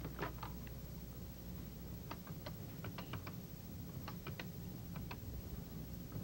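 Desk telephone being dialled: a series of light, sharp clicks in small clusters, a few at a time, spread over several seconds.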